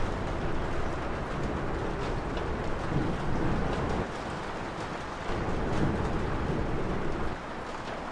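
A steady low rumbling noise with a hiss over it, a dark ambience with no clear tone or rhythm, dipping slightly about four seconds in and again near the end.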